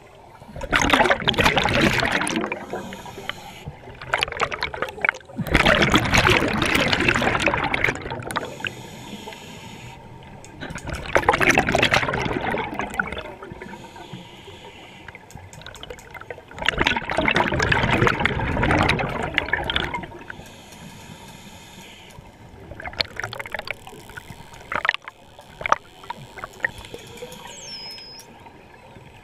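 Scuba regulator breathing heard underwater: a loud rush of exhaled bubbles about every five to six seconds, with quieter hissing inhalations between.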